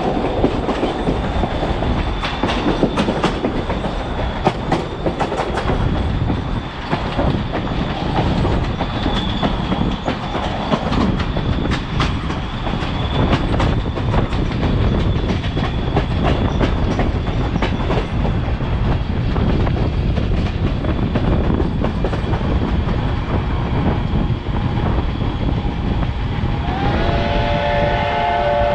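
Steam excursion train's passenger coach rolling along the rails: a steady running rumble with rapid clicking of the wheels over the track. About two seconds before the end, the steam locomotive's chime whistle sounds a held chord.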